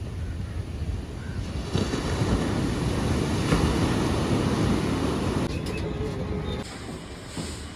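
Sea waves breaking and washing up a beach, with wind on the microphone; a wave swells up about two seconds in and dies away after about five seconds, leaving a quieter background.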